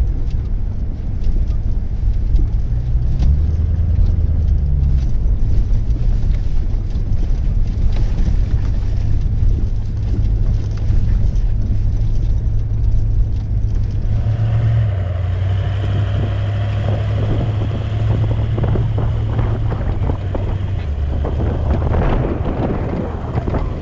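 4WD vehicle driving on a dirt track: steady engine and tyre rumble with small knocks and rattles, and wind buffeting the microphone.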